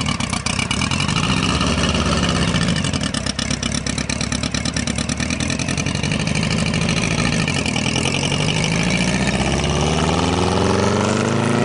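Engine of a Volkswagen Beetle hot rod running with a fast, rough firing beat as the car pulls away and drives off, its pitch rising steadily over the last few seconds as it accelerates.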